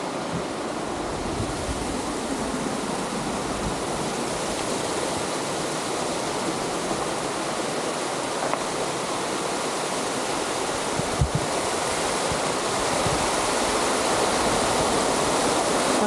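Waterfall rushing with a steady, even wash of falling water that grows a little louder near the end.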